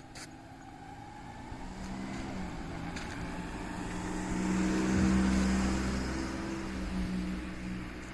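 An engine-driven vehicle passing by. Its engine hum and running noise grow louder to a peak about five seconds in, then fade as it moves away.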